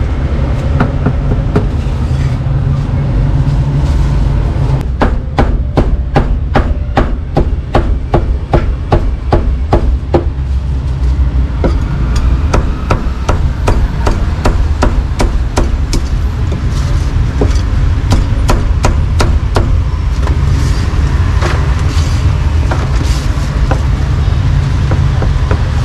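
A meat cleaver chopping pork on a board. It starts a few seconds in as a fast, even run of blows, about three a second, each with a short ring, then slows to sparser chops later on.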